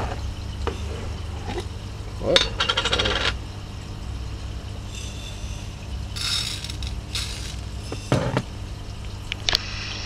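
Fish splashing and slurping at the water surface of an aquaponics fish tank as they take feed, in several short bursts. There is a quick clattering rattle about two seconds in, and a steady low hum from the circulation pump underneath.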